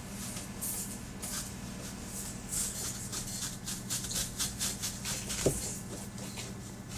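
Hand apple corer pushed and twisted through a raw apple: a run of crisp crunching and scraping clicks.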